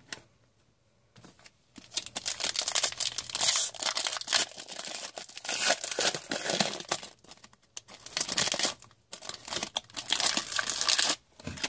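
Foil wrapper of a hockey card pack being torn open and crinkled, in a series of crackling bursts starting about two seconds in.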